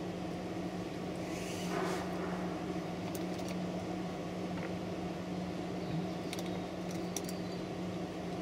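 Steady mechanical hum of a cooling unit running, with a constant low drone, plus a few faint light clicks.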